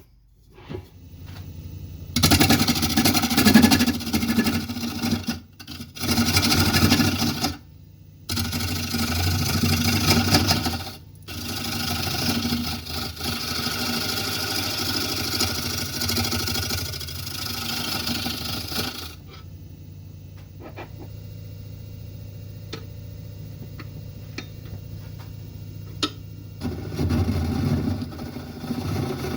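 Carbide-tipped turning tool cutting a spinning yellow cedar and walnut bowl blank on a wood lathe, in several passes of a few seconds each with short breaks. About two-thirds of the way through the cutting stops and the lathe runs on with a steady hum and a few light ticks, then one more short cut near the end.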